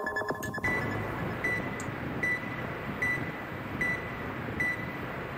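A short, high electronic beep repeats about every 0.8 seconds over a steady hiss, like the tone track of a rocket-launch countdown recording. Music cuts off just under a second in.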